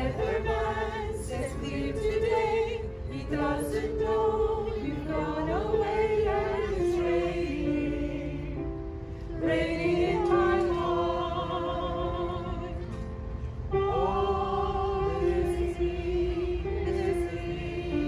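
A small amateur choir of mostly female voices singing together in unison. The song comes in phrases of held, wavering notes, with short breaks between them.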